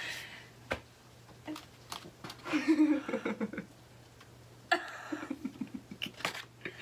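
Women laughing and giggling in short, pulsing bursts, once about midway and again near the end, with a quiet gap between.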